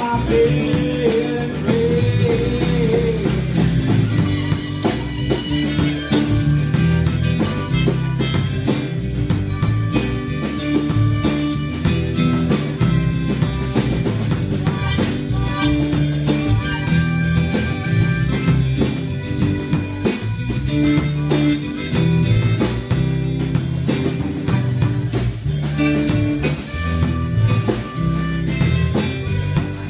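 Live band instrumental break: a harmonica solo played cupped against a vocal microphone, over strummed acoustic guitars, electric bass and a drum kit keeping a steady beat.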